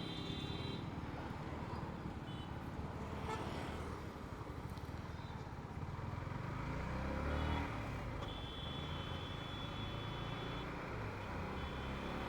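Motorcycle engine running with road and traffic noise while riding. A vehicle horn honks briefly at the start, gives a long honk of about two seconds beginning around eight seconds in, and honks again briefly near the end.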